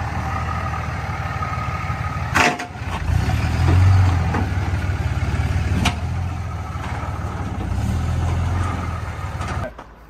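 A 2004 pickup's 5.9-litre Cummins inline-six diesel running steadily under way, swelling louder twice as it pulls, with two sharp clicks. The truck has an intermittent misfire that comes and goes, and by the driver's word it is running fine at the moment.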